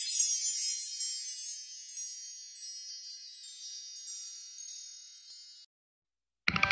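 Wind-chime sound effect: many high, bright chime tones tinkling and slowly fading, stopping suddenly about five and a half seconds in. After a moment of silence, music with guitar and drums comes in at the very end.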